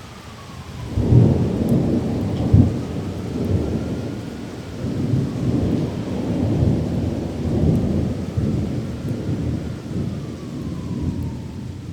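Thunder rolling over steady heavy rain. It breaks in about a second in, with a sharp crack about two and a half seconds in, then rumbles on in long waves.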